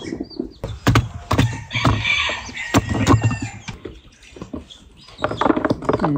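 Green tomatoes being dropped into a plastic barrel and handled in a metal bowl: a string of irregular knocks and dull thuds.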